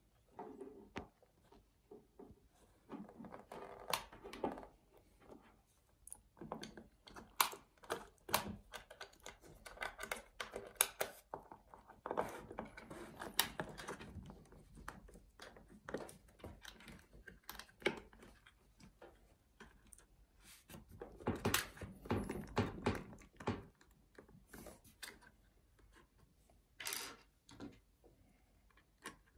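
Irregular clicks, taps and rustling of a battery pack and its plastic wire connector being handled and fitted into the battery compartment of a TDK A73 boombox, with a denser spell of handling noise about three quarters of the way through.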